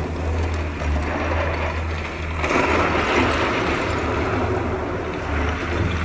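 Diesel engine of heavy earthmoving machinery running steadily, with a louder, rougher rush of noise from about two and a half seconds in that eases near the end.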